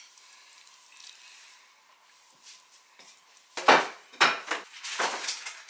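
Serving utensils clinking and scraping against metal bowls and a plate: quiet at first, then a few loud clatters in the last two seconds or so.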